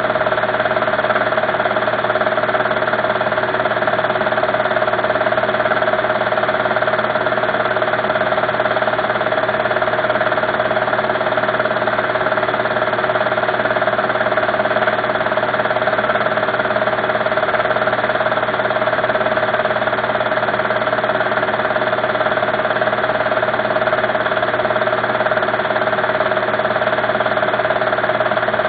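A steady, unchanging mechanical hum, like a motor running, with one strong mid-pitched tone over a fainter whirring noise.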